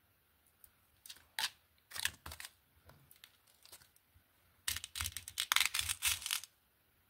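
Close-up handling of glass beads strung on elastic cord: a few scattered clicks and brushes, then about a second and a half of dense clicking and rustling near the end as the beaded strand is moved about on a fabric mat.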